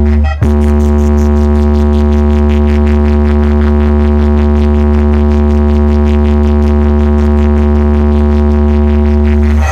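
A truck-mounted DJ speaker stack playing a very loud, steady deep bass drone layered with a buzzing tone, with a fast flutter of about five pulses a second in the high end. It breaks off for an instant about half a second in, then holds steady until it cuts out at the end.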